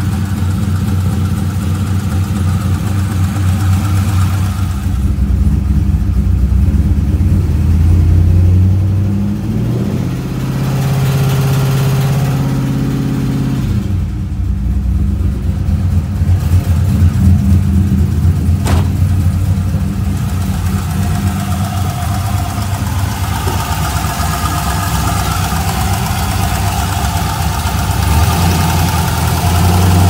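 C5 Corvette's LS1 V8 running at idle with an unexplained ticking noise that the owner suspects may be lifter tick or a spun bearing. The engine speed rises briefly about ten seconds in and settles back.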